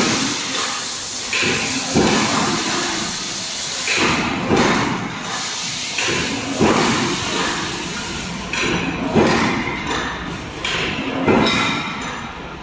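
Steel angle post roll-forming machine running, a steady rushing machine noise with a sharp metallic knock about every two seconds as it works the punched steel angle strip.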